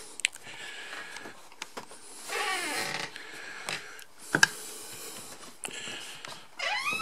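Footsteps and handling noise of someone walking with a camera through a barge's cabin, with a short falling creak about two and a half seconds in and a sharp knock about four seconds in.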